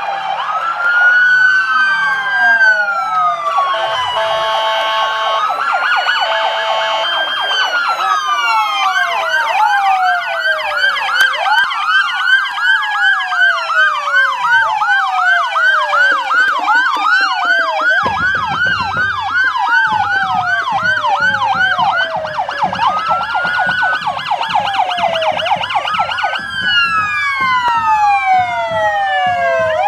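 Several police car sirens sounding at once, slow wails and fast yelps overlapping and crossing each other, with a steady horn tone sounding twice about four to eight seconds in. Low engine rumble from the cars comes in about eighteen seconds in.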